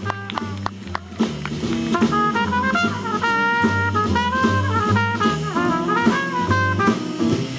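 Live jazz quintet playing: a trumpet solo of held notes over upright bass, piano and drum kit, with the trumpet line coming in strongly about a second in.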